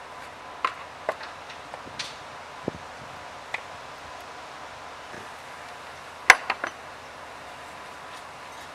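Scattered sharp clicks and knocks, about seven spread unevenly over the first few seconds, then a quick cluster of three a little after six seconds in, the first of these the loudest. A faint steady tone sits underneath.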